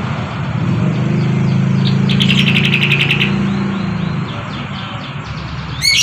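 Caged yellow-vented bulbul calling: a fast chattering rattle about two seconds in, then a loud call at the very end. Under it, a low engine hum swells and fades.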